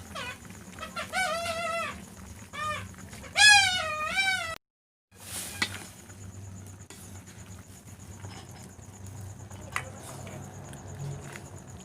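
Rooster crowing, several drawn-out wavering calls over the first four and a half seconds, the last one the loudest. The sound cuts out for half a second, then only a quiet steady background remains, with a single faint click near the end.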